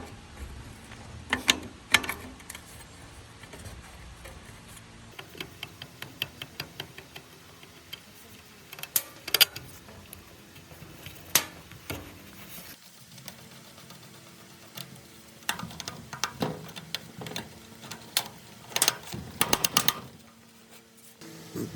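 Irregular sharp clicks and knocks of tools and metal parts being handled, with a few louder knocks and short runs of quick ticks, over a faint steady low hum.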